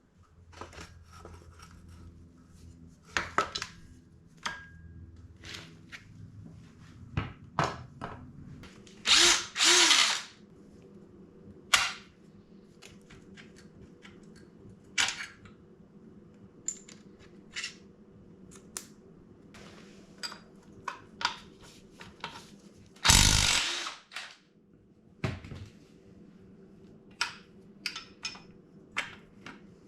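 Hand-tool work on a Honda CRF150R's swingarm: scattered clicks and knocks of tools and metal parts, with two short runs of a power tool, about a third of the way in and again near three-quarters.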